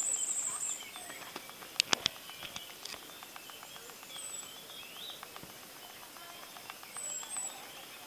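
Small songbirds singing: a high, thin trill at the start, then brief high chirps now and then. About two seconds in, three sharp clicks in quick succession are the loudest sounds.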